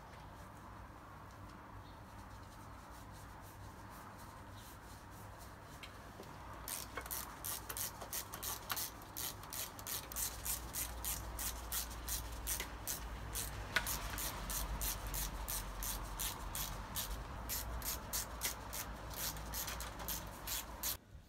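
Gloved hands scrubbing the cam cover of a Toyota 4A-GE engine in quick, even rubbing strokes, about three a second, starting about seven seconds in; before that only a low steady hum.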